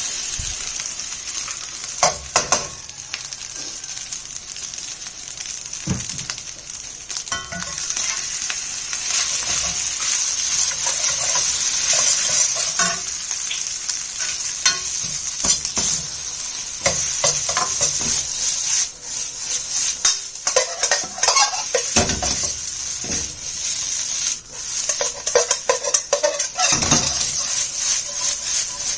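Leftover unpolished brown rice frying in oil with soy sauce in a hot pan, giving a steady sizzle. A utensil stirs and tosses it, knocking and scraping against the pan many times at irregular intervals.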